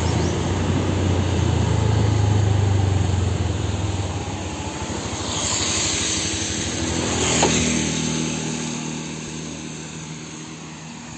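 Motor vehicle engine running with a steady low hum while the vehicle travels along a road. After about four seconds the engine sound fades, and a brief rush of noise gives way to a quieter steady hum.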